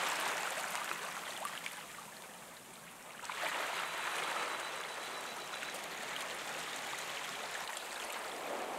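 Small sea waves washing up over sand and around rocks and draining back, with a soft hiss of foam. The first wash fades away, and a new one rolls in about three seconds in.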